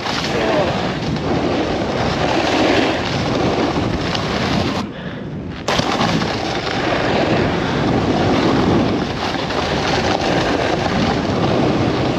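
Helmet-mounted GoPro on a moving snowboarder: wind rushing over the camera and the board scraping across hard-packed snow, a loud continuous rush. The scraping hiss drops away for under a second about five seconds in, then comes back suddenly.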